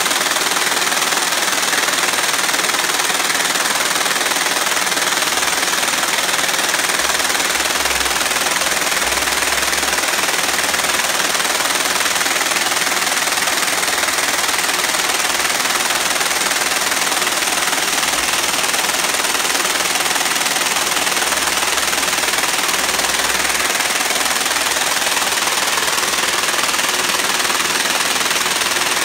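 48-spindle tubular cord braiding machine running at speed: a steady, dense, high-pitched clatter of its bobbin carriers, gears and chain drive, unbroken throughout.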